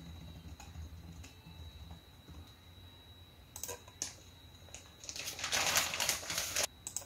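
A few laptop keyboard keystrokes clicking, then a plastic courier bag being handled, crinkling and rustling loudly for about a second and a half near the end.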